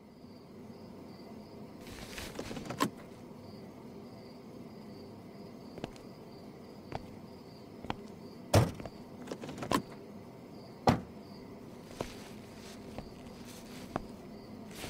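Faint pulsing high chirping, like insects, over a low hiss, with about ten irregular sharp knocks and thumps. The loudest knocks come a little past the middle.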